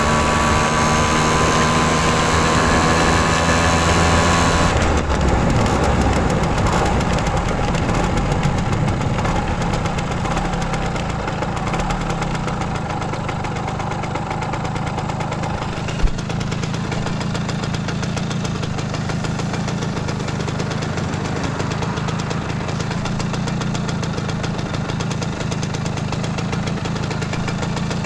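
Simson S51's two-stroke single-cylinder engine running at higher revs, then dropping to a steady idle about five seconds in. There is a single sharp knock about halfway through.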